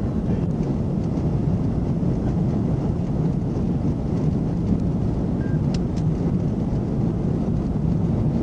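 Steady rumble of a police patrol car in motion: engine, tyre and wind noise heard from inside the cruiser.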